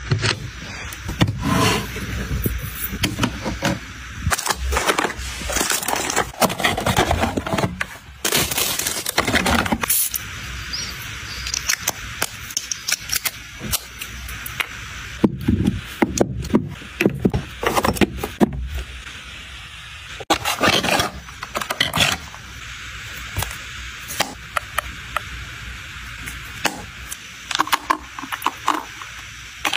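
Close-up handling of makeup packaging: plastic wrap crinkling and rustling, with frequent sharp clicks and taps of boxes and compact cases being handled and opened.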